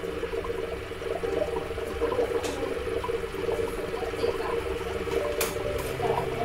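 A steady low hum under an even hiss, with a few light clicks.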